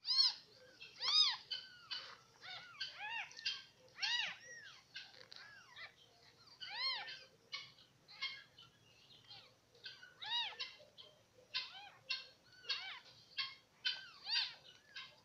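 Newborn kittens mewing over and over in short, high, arching cries while they suckle at a nursing dog.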